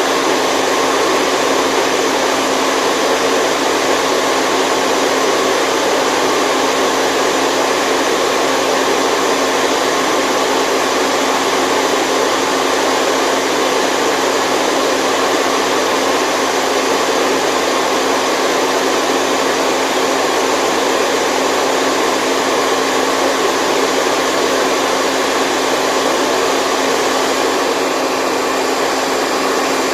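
Continuous white noise for lulling a baby to sleep: an even, unchanging hiss with a faint steady hum underneath.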